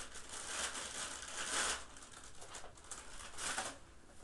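Clear plastic bag crinkling and rustling as it is scrunched in the hands, in irregular bursts for about the first two seconds, then a few lighter rustles.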